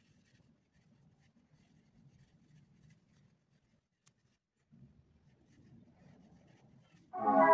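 Faint rustling and rubbing of yarn being worked with a crochet hook by hand, pausing briefly midway. Music starts suddenly and loudly just before the end.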